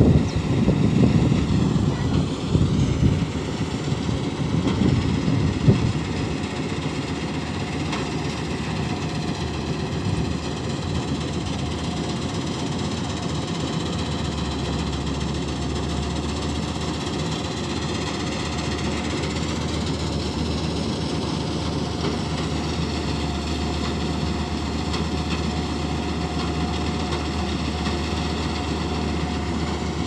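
Tracked combine harvester running steadily at a distance as it cuts rice, a constant engine drone with a high whine over it. Wind buffets the microphone in the first few seconds.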